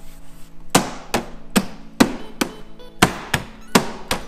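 Repeated sharp knocks on the plastic inner trim panel of a Jeep Wrangler JL tailgate, about two or three a second, as the body clips are knocked back into place over the routed CB radio wire.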